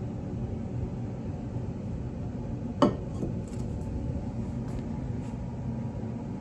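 Steady low electrical hum, with one sharp click about three seconds in and a few faint ticks after it.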